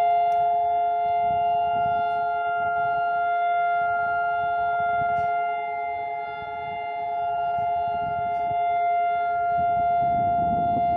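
Israeli civil-defence siren sounding the steady memorial tone of Yom HaZikaron, the signal for standing in silence in remembrance of the fallen. The tone holds one unwavering pitch with no rise or fall, dipping slightly in loudness about six seconds in.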